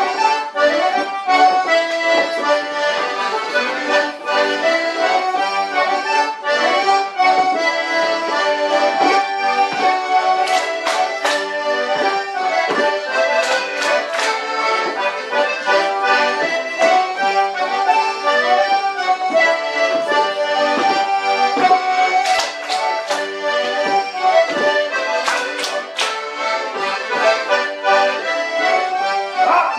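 Accordions playing a lively traditional morris dance tune. The dancers clap in short runs of sharp claps, about a third of the way in and again past two-thirds.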